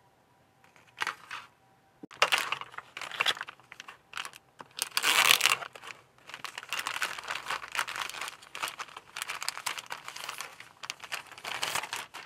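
Clear plastic kit bags crinkling as hands handle the plastic model parts sprues packed in them, in irregular rustling bursts, loudest about five seconds in.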